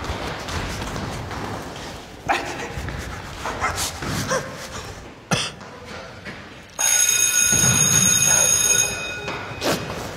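Electric school bell ringing, a steady shrill ring lasting about two and a half seconds, starting about seven seconds in. Before it, scattered thumps and knocks of children running in the corridor, with one sharp knock about five seconds in.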